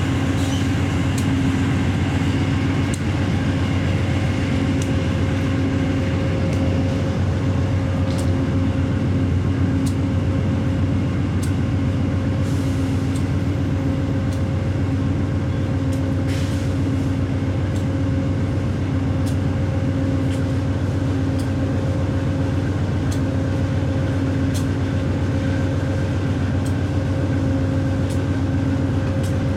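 Amtrak diesel locomotive running steadily, a constant low hum with faint, irregular clicks throughout.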